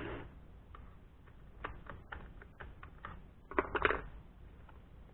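Scattered light clicks and knocks from a Stihl 029 chainsaw's handle and housing being shifted and handled during disassembly, with a short cluster of rattling clicks about three and a half seconds in.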